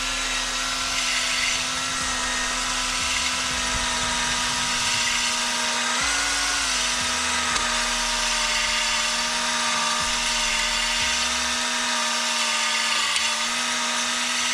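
Electric drill spinning a three-stone cylinder hone inside an engine cylinder: a steady motor whine over the scraping hiss of the oiled stones on the bore wall, knocking the glaze off the cylinder. The whine rises briefly about six seconds in, then settles again.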